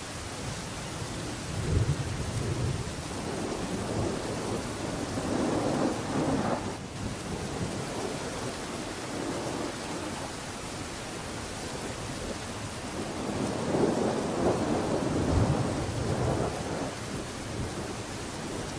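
Steady background hiss with a few louder low rumbling swells, like rain or rumble on an open microphone.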